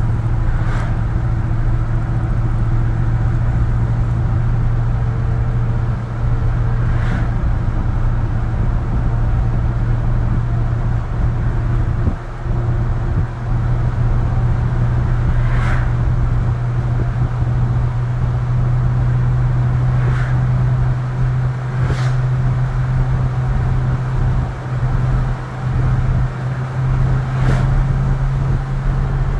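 A 1966 Ford F100 pickup's 302 (5.0-litre) V8, a swap for the original 352, running steadily at cruising speed with road rumble, heard from inside the cab. A few faint sharp clicks come through now and then.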